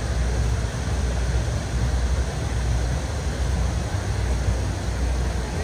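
Steady city street noise in the rain: a continuous low rumble under an even hiss, with no single event standing out.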